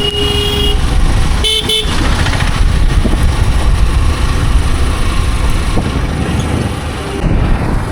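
Riding noise on the road: heavy, steady wind and engine rumble, with a vehicle horn honking briefly twice, the second short toot about one and a half seconds in.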